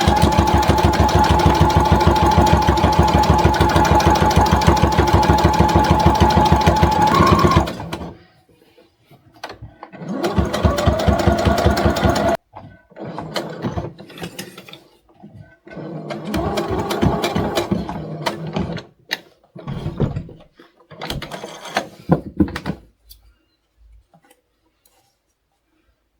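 Brother Project Runway sewing machine stitching fast and steadily, with a motor whine over the rapid needle strokes, for about eight seconds before stopping. It then runs in several shorter spurts with pauses between, as it sews slowly through a thick layer of fabric and cotton batting. It falls quiet for the last few seconds.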